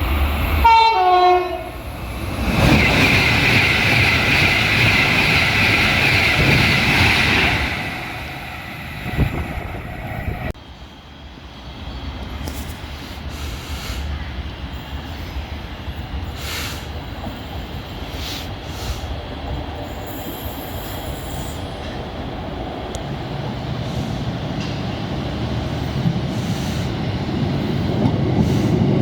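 Trains at a railway station: a short falling run of tones, then a train passing with a loud high sustained tone for about five seconds. After a sudden cut, steady train running noise that grows louder toward the end as another train approaches.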